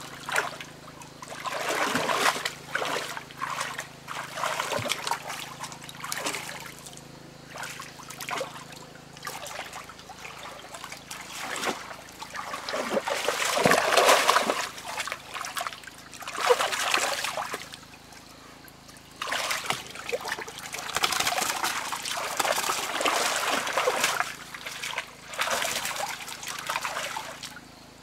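Hands splashing and sloshing through shallow, muddy stream water in irregular bursts while groping for fish by hand, loudest about halfway through.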